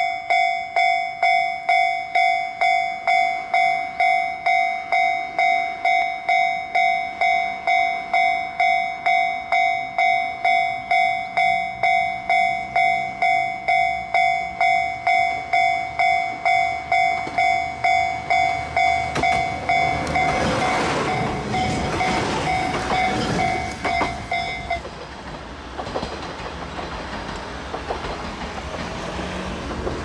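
Japanese level-crossing warning bell ringing in a steady, regular beat as a JR KiHa 66/67 diesel railcar approaches. The train's engine hum and wheel-on-rail noise grow louder through the second half. The bell cuts off suddenly about three-quarters of the way through, leaving the diesel train's rumble.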